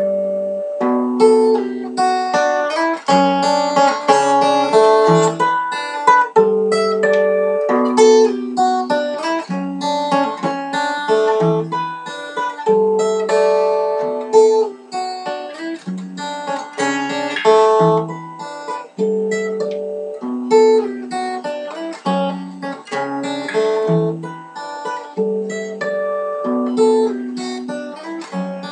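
Solo acoustic guitar playing an instrumental piece, notes picked one by one in a pattern that repeats about every two seconds.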